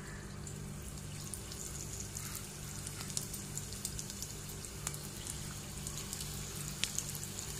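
Breadcrumb-coated bread rolls deep-frying in hot oil in a steel pot: a steady sizzle with scattered sharp pops and crackles as the oil bubbles around them.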